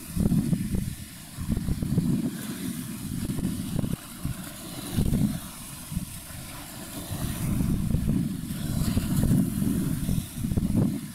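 Wind buffeting the microphone: an irregular low rumble that swells and drops every second or two, over a faint hiss.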